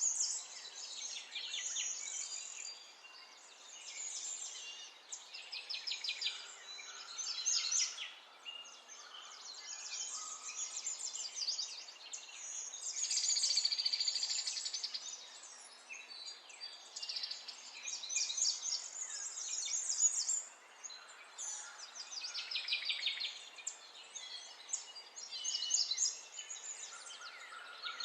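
Several birds chirping and trilling, a rapid, overlapping chorus of high calls that comes and goes every second or two.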